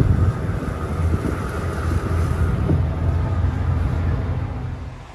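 Wind buffeting the microphone on the open deck of a car ferry under way, over the steady low rumble of the ferry's engine. It drops away near the end.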